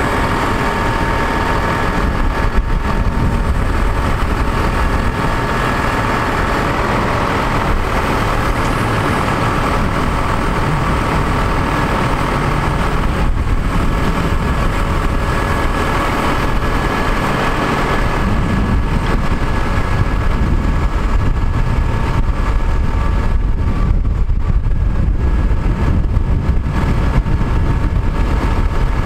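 A truck's Cummins ISC inline-six diesel engine running steadily, driving the hydraulics of the Prentice 90ET grapple boom as it is swung and extended, with a thin high whine that fades out for a while in the middle and comes back.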